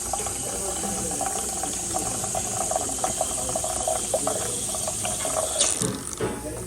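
Jura XJ9 superautomatic coffee machine's milk system running on water: steady steam hissing with a rattling gurgle as the frother draws water through, showing the milk suction works. It cuts off sharply near the end.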